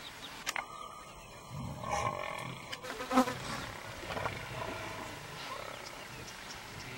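Deep calls of a large wild animal: a low rumbling growl about two seconds in, then a louder, short growl about three seconds in.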